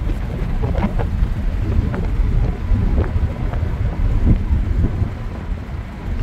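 Steady low rumble of tyre and wind noise inside a Kia car's cabin at about 100 km/h, the car coasting in neutral so the engine only idles under it.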